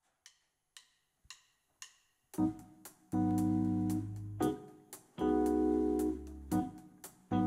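Four soft clicks about half a second apart count in the band. Then a live band comes in with the instrumental introduction: sustained keyboard chords over a strong bass, with sharp drum accents every second or so.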